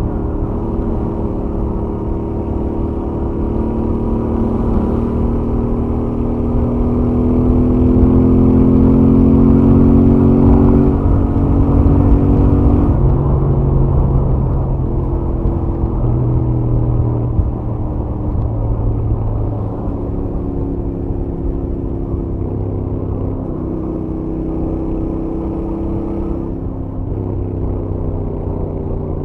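Royal Enfield Interceptor 650's stock 648 cc parallel-twin engine and exhaust on a highway run, heard from the rider's helmet. The engine note rises and grows louder as the bike pulls, peaking about ten seconds in, then drops and holds steadier, lower tones, with several sudden changes in pitch.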